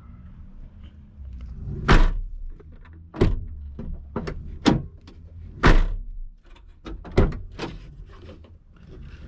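Rear half door of a 2001 Ford F-250 Super Duty being worked open and shut, with a series of sharp latch clicks and door thuds, the loudest about two seconds in and near six seconds. The door latch has just had its lock cable replaced, and the latch is now catching and releasing.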